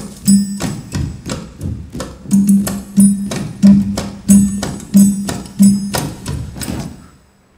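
Percussion music: loud, evenly spaced drum strikes, each a pitched low thud with a bright ringing top, about three every two seconds, with lighter hits between them. The music dies away about seven seconds in.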